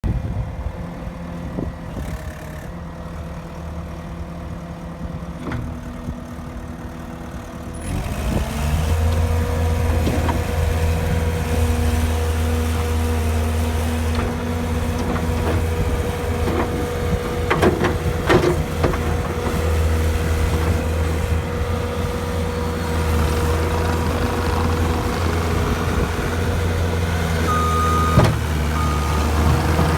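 2012 Bobcat T770 track loader's diesel engine idling, then throttled up about eight seconds in and held at a steady higher speed. A few knocks sound just past the middle, and a backup alarm beeps near the end.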